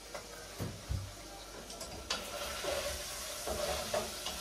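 Meat frying in a pan on a gas hob, sizzling steadily and getting louder about two seconds in. There are a couple of dull knocks in the first second, then scraping as the meat is stirred.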